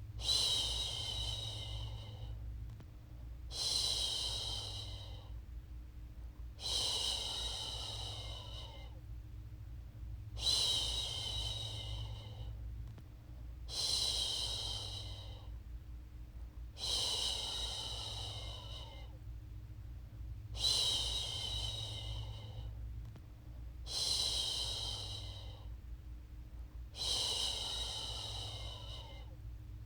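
A woman's voice shushing a baby, a long "shhh" repeated about every three seconds, nine times, each one fading out. A steady low rumble runs underneath.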